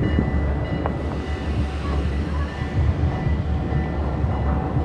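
Low, uneven rumble running throughout, with faint steady tones above it.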